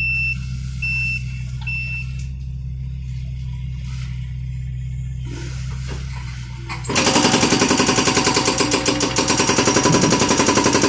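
John Deere compact excavator running with a steady low hum, with three short beeps about a second apart at the start. About seven seconds in, its BTI hydraulic breaker starts hammering the concrete in loud, rapid blows.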